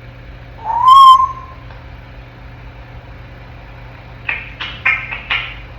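African grey parrot whistling: one loud whistle about a second in that rises and then holds steady. Near the end comes a quick run of about five short, harsh chirps.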